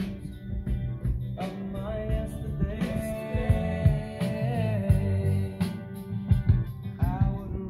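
Recorded song with a singing voice, guitar, bass and drums, played back through a vintage Pioneer SA-9100 integrated amplifier and its loudspeakers. One sung note is held for about a second and a half near the middle.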